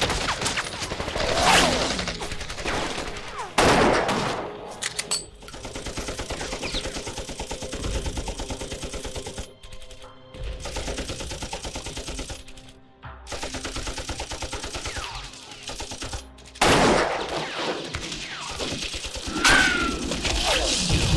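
Film battle soundtrack of dense rifle and machine-gun fire, with several louder surges about two and four seconds in and twice near the end.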